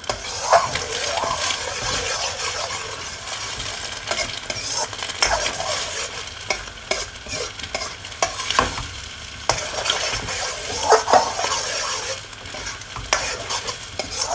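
Eggs sizzling in hot olive oil in a steel wok while a metal spoon stirs and scrapes them, with frequent clicks and scrapes of the spoon against the pan over a steady hiss of frying.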